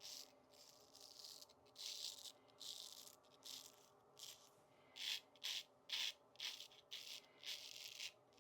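Faint, short scraping strokes of a Dubl Duck Pearl Duck 6/8 full-hollow straight razor cutting lathered stubble, quickening to about two strokes a second in the second half.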